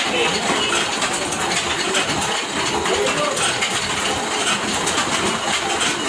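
Dense, continuous clinking of small metal parts jostling and dropping against one another.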